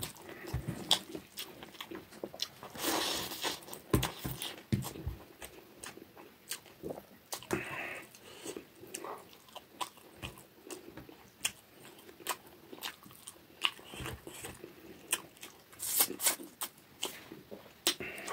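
Close-up eating sounds of a man chewing rice eaten by hand: wet chewing and lip smacks with many short, sharp mouth clicks.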